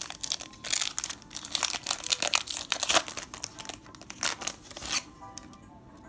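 Foil trading-card booster pack wrapper crinkling and being torn open, dense rustling for about five seconds that then stops, with soft background music underneath.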